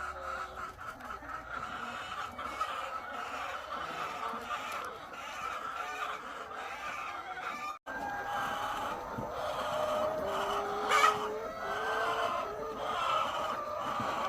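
A large flock of egg-laying hens clucking and calling continuously, many calls overlapping. The sound cuts out for an instant a little past halfway, and one call stands out louder a few seconds later.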